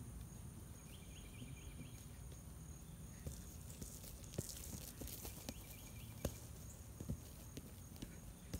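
Soccer ball being dribbled on grass: irregular dull thuds of the foot striking the ball, mixed with footsteps, starting about three seconds in. Behind them, a steady outdoor hiss with two short runs of rapid chirps.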